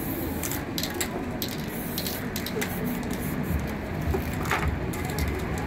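Aerosol spray-paint cans hissing in a series of short bursts, over a steady low background hum.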